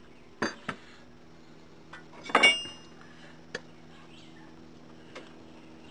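Light metallic clicks of pliers working spring pinch clamps on a golf cart fuel hose: a few separate clicks, with one louder, briefly ringing clink about two and a half seconds in.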